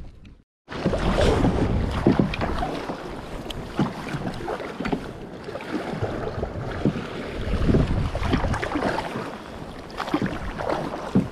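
Kayak paddle strokes splashing through choppy sea water, with wind buffeting the microphone, after a brief dropout at the start.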